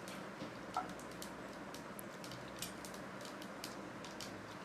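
Faint, irregular crackling and clicking of mustard seeds, urad dal, curry leaves and chilli powder frying in oil in a kadai on a low flame, over a light steady hiss.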